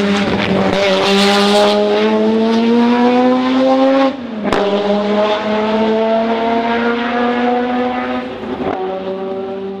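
Ferrari 312P's V12 racing engine accelerating hard past, its note climbing steadily. About four seconds in the note drops sharply as it shifts up, then climbs again. It shifts up again near the end as the sound fades away.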